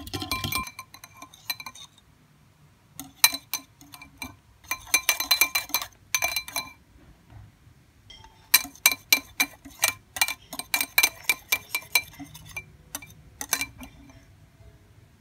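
Metal balloon whisk beating a thick mixture in a glass bowl: rapid clinking of the wires against the glass, in several bursts a second or more long with short pauses between.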